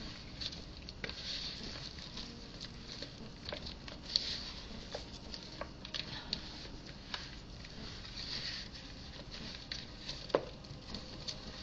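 Hands tossing oiled acorn squash slices with herbs and grated Parmesan in a bowl: soft, irregular squishing and pattering with scattered small clicks, a couple sharper than the rest.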